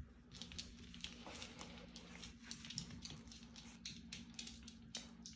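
Faint, irregular clicking and tapping of a silver poodle puppy's claws on a wooden floor as it scampers about, over a low steady hum.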